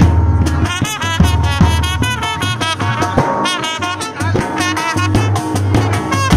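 A brass band playing: trumpets carry a wavering, ornamented melody over sustained sousaphone bass notes and a steady drum beat.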